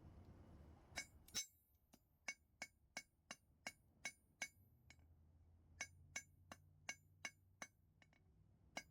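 Hammer blows ringing on steel at the anvil, forging. They start about a second in with two louder blows, then go on at about three strikes a second, with a short pause past the middle.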